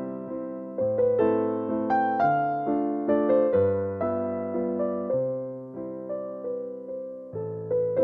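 Background music: a slow keyboard piece in a piano sound, each note struck and then fading, with a melody over lower notes at about two notes a second.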